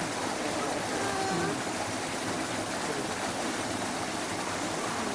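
Steady rushing of running water, with faint distant voices about a second in.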